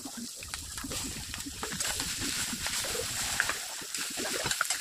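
Steel spatula mixing mashed boiled potato into spice tempering in a stainless steel kadhai: soft squelching with scrapes and many light clicks of metal on the pan.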